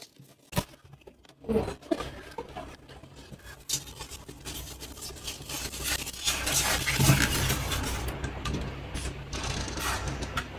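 Cardboard box and white foam packaging being opened, scraped and handled, with sharp clicks and rustles early on and a louder stretch of scraping and rubbing in the middle, over a steady low hum.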